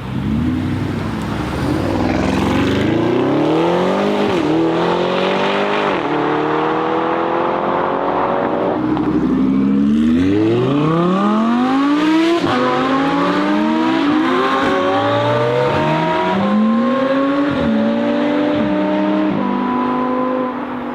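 Tuned Audi RS Q8 twin-turbo V8 with aftermarket exhaust accelerating hard through the gears. Engine pitch climbs, then drops at each of several upshifts, with a brief lift partway through before another long, loud pull.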